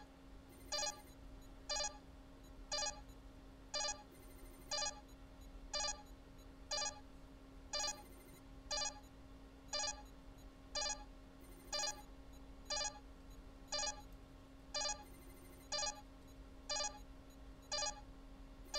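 Starship auto-destruct countdown on a Star Trek-style computer, beeping once a second in time with the countdown. Each beep is a short electronic tone, over a steady low hum.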